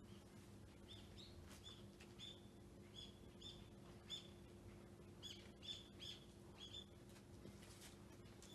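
Faint chirping of small birds: short, high chirps repeated irregularly, over a steady low hum.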